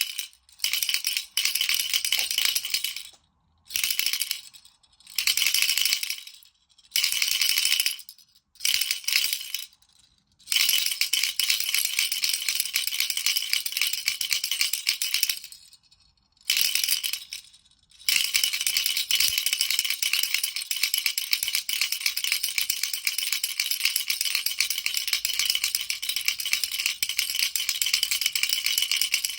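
A baby's toy rattle being shaken, its beads rattling in bursts of a second or two with brief pauses. After about two-thirds of the way in, it is shaken without a break.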